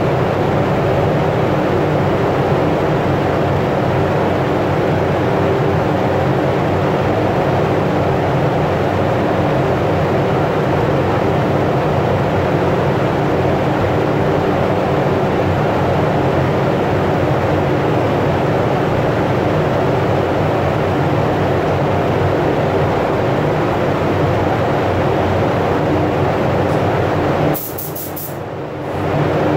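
Paint spray booth ventilation fans running: a loud, steady rush of air with a low, even hum. Near the end the sound dips for a couple of seconds, then comes back.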